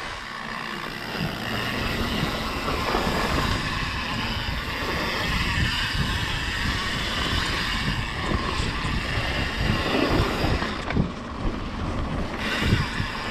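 Wind rushing over the microphone and the rattle of a mountain bike riding fast down a rough downhill trail, with many short low knocks as the bike goes over bumps.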